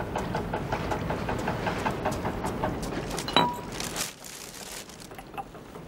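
An engine running with a regular chugging of about five beats a second that drops away after about four seconds, with a single sharp click about three and a half seconds in.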